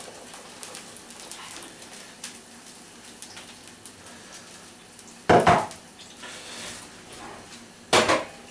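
Cold batter sizzling and crackling faintly in a roasting tin of very hot lard. About five and eight seconds in come two loud, short clatters of metal cookware.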